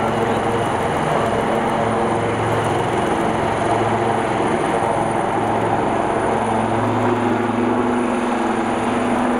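AW159 Wildcat helicopter's rotors and twin turboshaft engines at takeoff power as it hovers and climbs away: a steady rotor thrum with a thin, high turbine whine over it.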